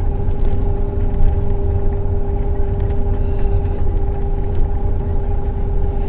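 The engine and road rumble of a heavy vehicle carrying the camera, heard from inside as it drives on at a steady speed. There is a strong low rumble under an even engine drone that holds one pitch.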